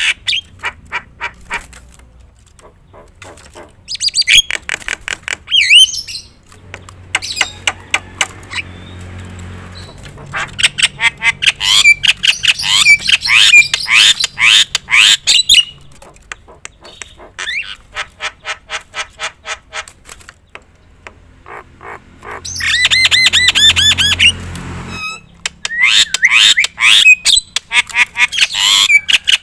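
Javan myna singing loudly and continuously: runs of rapid dry clicks alternate with bouts of harsh squawks and whistled notes sweeping up and down.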